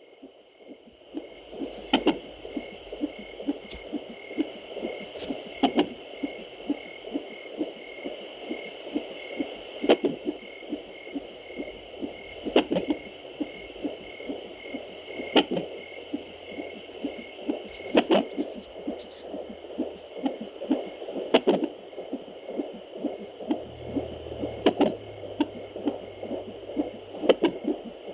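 Fetal heartbeat through a handheld baby doppler, a fast, even whooshing pulse. Every two to three seconds a louder thump cuts across it: the baby hiccuping.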